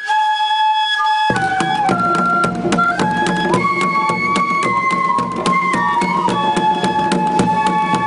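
Suling tambur ensemble: several side-blown flutes play a held, stepwise melody, and drums come in about a second in with a steady beat under it.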